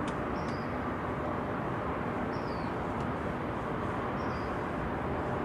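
A bird repeating a short, high, falling chirp about every two seconds over a steady rushing background.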